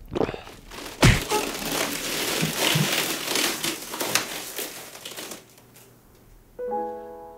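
Two people scuffling in a wicker armchair: a sharp thump about a second in, then a few seconds of rustling, shuffling and knocking that dies away. A soft piano chord comes in near the end.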